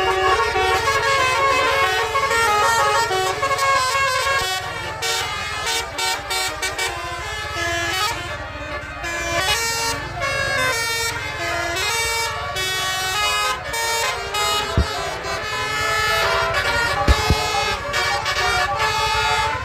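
Bus telolet horn, a multi-tone basuri air horn, playing a melody note after note over a low engine rumble. Near the end come two short sharp knocks.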